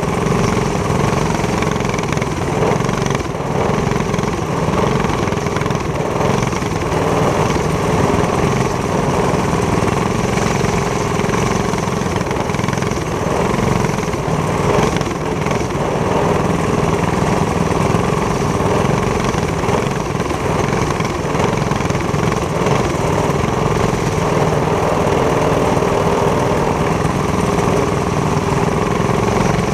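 Racing go-kart's box-stock engine running steadily at speed, heard from the driver's helmet.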